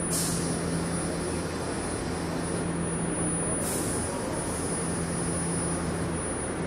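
Hiroden 3700-series three-section articulated tram moving slowly over the track points, a steady low hum with running noise. Two short hisses come at the start and again near the middle.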